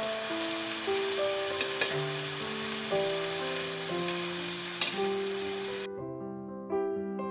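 Food sizzling in olive oil in a frying pan, with a few sharp clicks, until the sizzle cuts off abruptly about six seconds in. Piano background music plays throughout.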